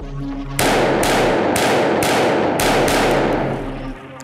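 CZ P-09 Kadet .22 LR pistol fired about five times in quick succession, roughly two shots a second, each shot trailing off into ringing.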